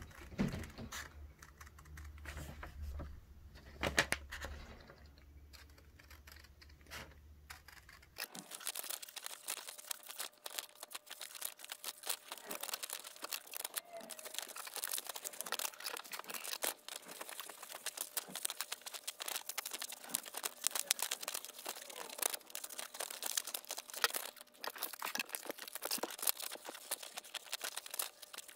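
Scissors snipping through printed paper, with the sheet rustling and crinkling as it is turned. The first eight seconds hold sparser snips over a low hum; after that the snipping and crinkling become dense and continuous.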